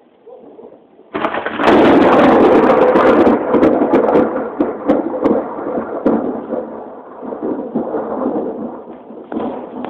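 A thunderclap breaks out suddenly about a second in and is loudest for the next two seconds, then rolls on as a rumble that slowly fades.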